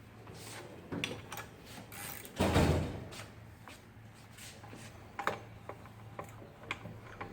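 Workshop handling noise: scattered clicks and knocks of tools and metal fork parts being handled, with one louder clatter about two and a half seconds in, over a steady low hum.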